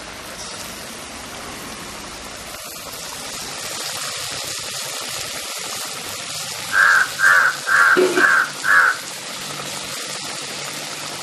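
A crow caws five times in quick succession, about half a second apart, some seven seconds in. Under it runs a steady hiss from the fish curry simmering in the pot.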